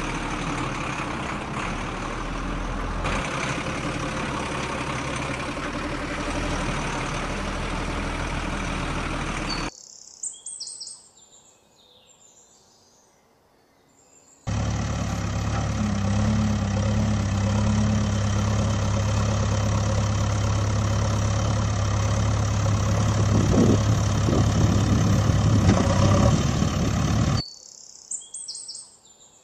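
Dubbed-in truck engine sound running steadily; it cuts off abruptly about ten seconds in. A few faint bird chirps follow, then a second engine sound with a steady low hum starts suddenly at about fifteen seconds and cuts off just as abruptly near the end, leaving faint chirps again.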